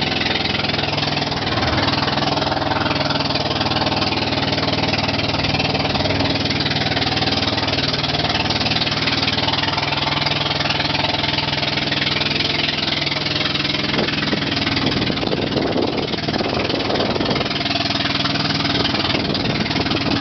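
Outrigger boat's engine running steadily under way, with the rush of wind and splashing water over it.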